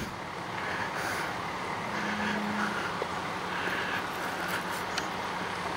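Steady low drone of a vehicle engine running over outdoor background noise, with a short extra tone about two seconds in.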